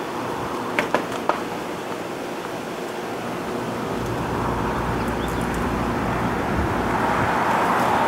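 Outdoor background noise, with a few faint clicks about a second in. A low rumble joins about halfway and the noise gradually swells toward the end.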